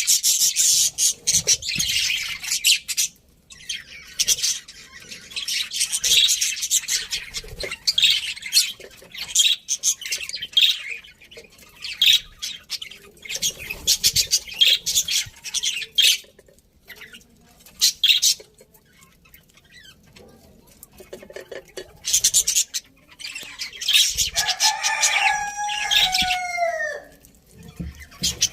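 A flock of budgerigars chirping and chattering in busy bouts, with short lulls between them. Near the end comes a longer, lower call that falls in pitch as it ends.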